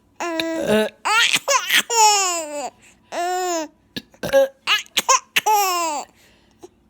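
Baby laughing in a string of about six high-pitched bursts, each arching up and down in pitch, with short breaths between them.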